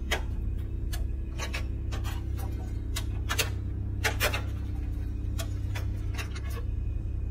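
Intro soundtrack of a steady low drone under sharp, dry clicks, about two a second at uneven spacing, like a ticking clock.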